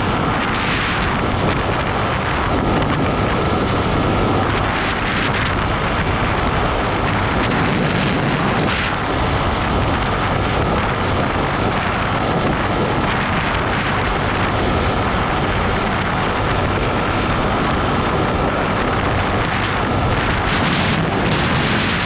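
Arctic Cat ATV engine running steadily at cruising speed, with its tyres rolling over gravel.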